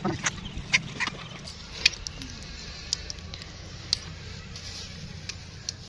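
Hands peeling the skin off boiled chicken feet: irregular small clicks and snaps over a steady low buzz.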